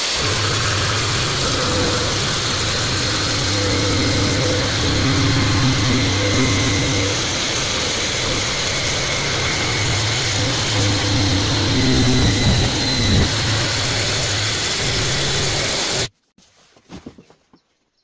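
DeWalt XR cordless jigsaw cutting through a softwood board, its blade sawing out the waste of a dovetail joint with a steady, loud buzz. The sound cuts off abruptly about 16 seconds in, followed by a few faint taps.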